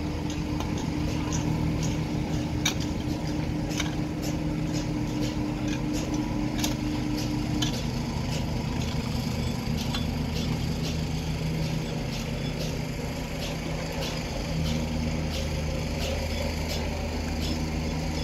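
Diesel engine of an excavator running steadily at a building site, its note shifting a little partway through, with repeated sharp metallic clinks and taps of hand tools over it.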